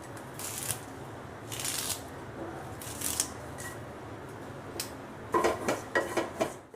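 Washed curry leaves sizzling and crackling in a hot dry pan as they are stirred, with scattered sharp pops and a run of louder crackles and scrapes near the end; the water left on the freshly washed leaves makes them spit in the heat. The sound cuts off suddenly at the end.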